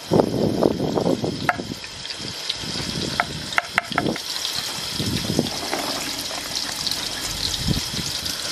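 Small onions and garlic cloves frying in hot oil in an aluminium handi: a steady high sizzle, with a few sharp clicks around the middle as pieces drop into the pot. A low rumble comes first, for about a second and a half.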